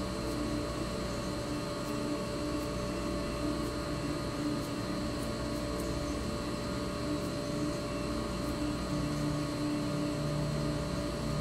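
A steady hum with several held tones; a lower tone joins in near the end.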